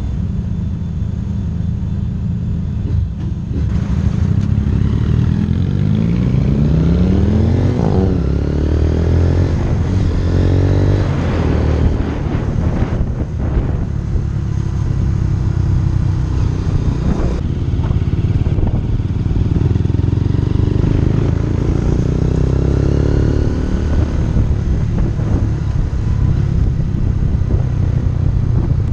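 Motorcycle engine idling for the first few seconds, then pulling away and accelerating through the gears, the pitch rising and dropping back at each shift, with wind and road noise.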